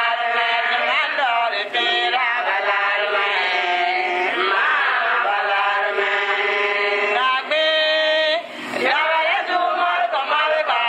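Voices singing a chant-like song, with sustained, gliding sung notes throughout.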